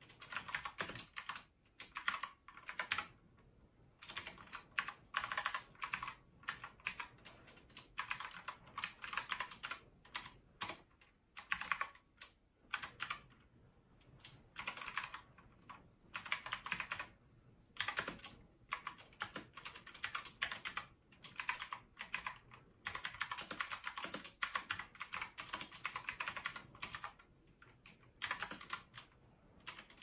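Typing on a Leobog K21 mechanical keyboard with clicky blue switches: quick runs of sharp keystroke clicks lasting a second or two, broken by short pauses.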